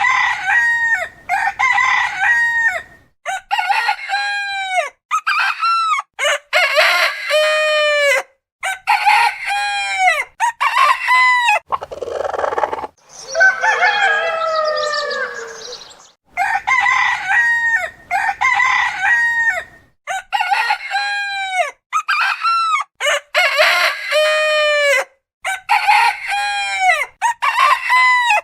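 Domestic roosters crowing one after another, each crow a drawn-out call that rises and falls. The crows are spliced together with short gaps and abrupt cuts, and one about halfway through is rougher and lower.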